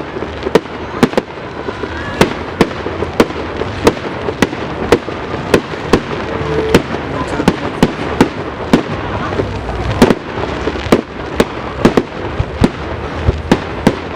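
Fireworks display: a rapid, irregular string of sharp bangs, two or three a second, over a steady background rumble.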